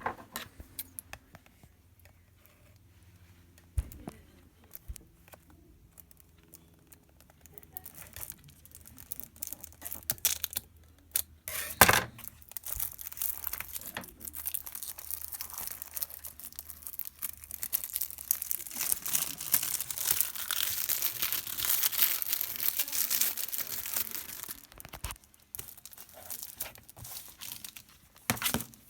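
Plastic shrink-wrap being torn and crinkled off Blu-ray cases, with scattered clicks and handling taps. One sharp snap about twelve seconds in is the loudest sound; the tearing and crinkling is densest through the middle to late part.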